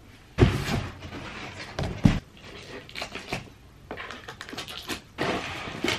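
Flat-pack IKEA chest of drawers being unpacked: cardboard and packaging rustling and scraping as the parts are handled, with two loud knocks, about half a second and two seconds in, as pieces are set down.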